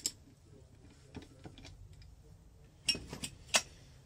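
Sharp metallic clicks of a torque wrench and socket working a nut on a two-stroke motorcycle engine, with a few lighter ticks. About three seconds in comes a cluster of louder metal clinks as the wrench is laid down on the bench.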